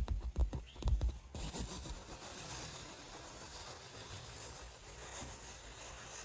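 Irregular scratching and knocking of something being handled, ending abruptly after about a second and giving way to a steady hiss.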